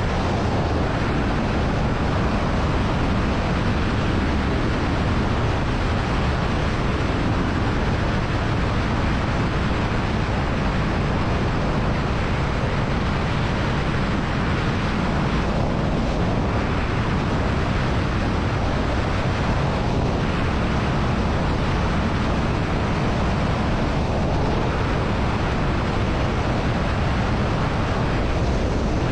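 Wind rushing over the microphone on a moving Royal Enfield Shotgun 650, with its engine and road noise underneath, at a steady level.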